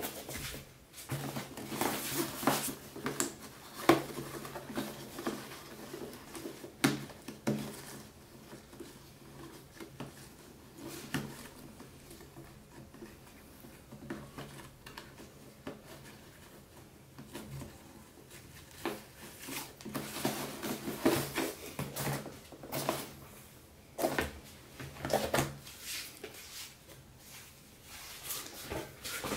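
Cardboard gift boxes handled on a tabletop and a gift ribbon untied: scattered knocks, taps and rustles of cardboard and ribbon, over a steady low hum.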